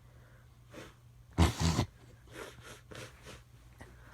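A woman's sharp nasal snort about a second and a half in, then a few softer sniffs. It is the sound of a sneeze building that will not come out.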